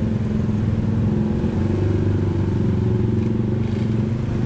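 Many motorcycles and motor scooters running together and pulling away in a dense stream of traffic, a steady mass of small engines.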